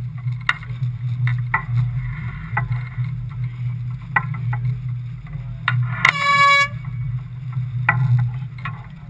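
One short air-horn blast about six seconds in: the race committee's sound signal given as flag F (Foxtrot) is hoisted to begin the match-race starting sequence. Under it runs a steady low hum, with scattered sharp knocks.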